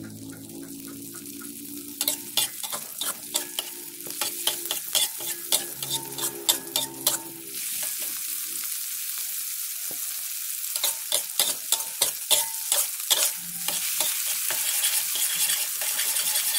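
Chili sambal with squid sizzling in a hot wok while a metal spatula stirs and scrapes it, giving quick runs of clinks and scrapes in two spells. The sizzle grows louder about halfway through as the sauce heats up and bubbles.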